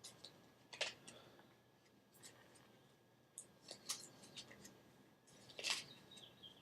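Quiet paper handling of tarot cards and book pages: a few short, sharp papery swishes and taps, about a second in, around four seconds and near six seconds.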